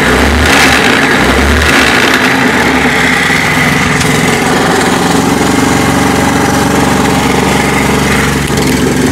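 Honda Activa scooter's single-cylinder four-stroke engine and CVT running, blipped twice in the first two seconds and then idling steadily. The mechanic puts the noise down to a damaged speed pulley (variator) in the clutch housing.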